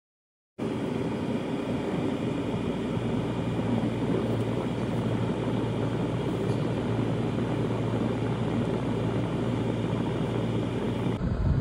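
Steady vehicle running noise: a low engine drone under a rumble of road and wind noise. It starts abruptly about half a second in and shifts slightly near the end.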